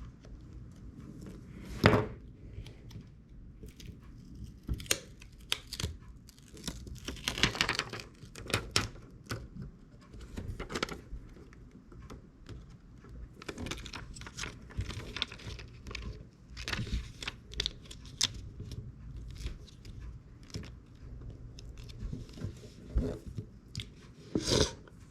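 Hands working on iPhone 6s repair parts: an irregular run of small clicks, scrapes and tearing sounds, with a louder snap about two seconds in and another near the end.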